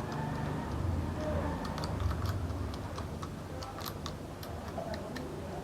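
Irregular light clicks and ticks of plastic packaging and small plastic toys being handled, over a low steady hum.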